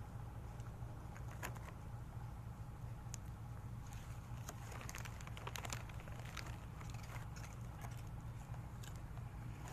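A dog chewing and crunching small snack pieces picked up off gravel, heard as scattered sharp clicks and crunches that are busiest around the middle, over a steady low hum.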